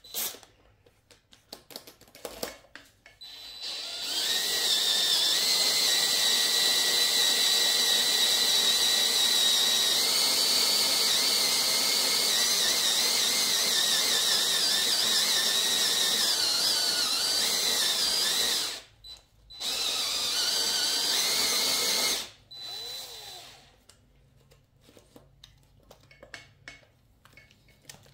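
Hyper Tough 20V cordless drill boring out a stripped head-bolt hole in an aluminium LS engine block through a drill guide, enlarging it for a thread insert. After a few short trigger bursts it runs steadily with a high whine for about fifteen seconds, stops briefly, runs a couple of seconds more, then stops.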